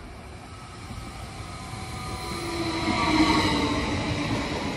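SBB electric passenger train approaching and passing close by, growing louder to a peak about three seconds in. Its electric whine drops slightly in pitch as it goes by, over the rumble of wheels on rail.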